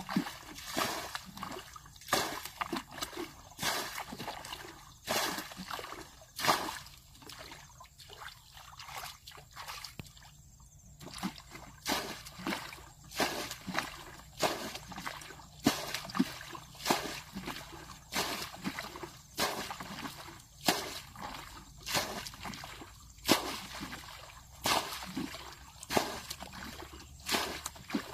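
Water sloshing and splashing in quick, irregular splashes, with a quieter stretch about eight to eleven seconds in.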